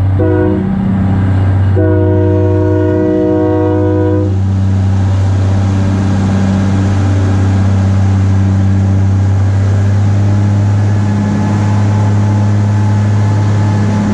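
GE 80-ton diesel-electric switcher running along the track with a steady low engine drone. Its air horn gives a short toot at the start and then a longer blast of about two and a half seconds.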